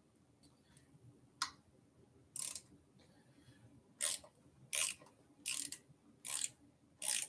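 Ratchet wrench clicking in seven short strokes, roughly one a second, as the bike's handlebar stem bolts are tightened to line the front wheel up straight.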